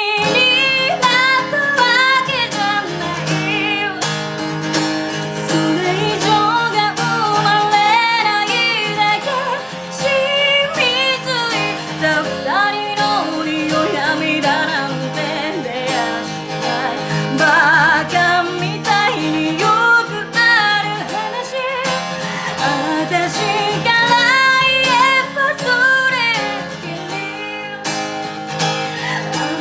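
A woman singing a slow ballad in Japanese, accompanying herself on a strummed black Gibson acoustic guitar.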